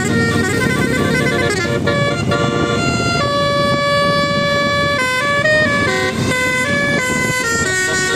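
Bus telolet horn, a set of air horns playing a tune of stepped notes that change every fraction of a second, with a chord held for nearly two seconds midway, over the low rumble of a running bus engine.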